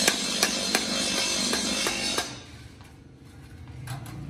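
A wooden mallet tapping a chisel through a thin stainless steel strip on a wooden block, about three sharp taps a second, with two more taps near the end. Loud background music runs under the first half and fades out about two seconds in.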